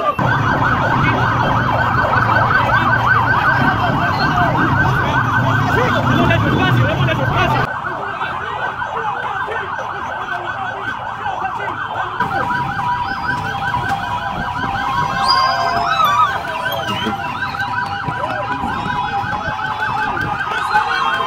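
Emergency vehicle siren sounding in a fast yelp, warbling rapidly and steadily, with a low hum beneath it that drops out about a third of the way in.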